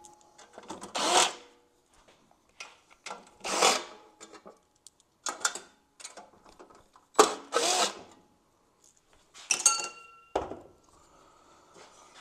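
Cordless drill/driver backing the screws out of a combat robot's metal top cover plate, in several short bursts a few seconds apart, each a brief rising and falling whine. A single knock near the end.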